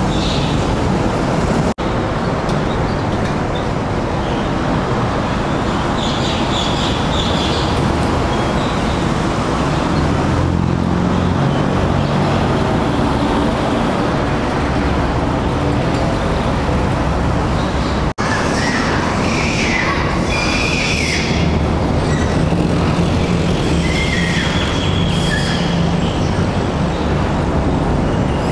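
Continuous loud rumbling noise with faint high squeaks now and then.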